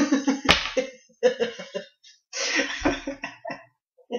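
Two men laughing hard in breathy bursts, with a sharp click about half a second in.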